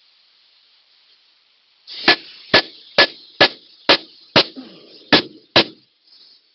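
Eight hammer blows on steel, evenly spaced about half a second apart, each with a short metallic ring; they begin about two seconds in and stop near the end.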